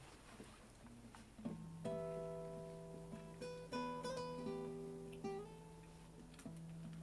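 Acoustic guitar played freely: a low bass note comes in about a second and a half in, then a few separate plucked chords and notes, a second or two apart, each left to ring.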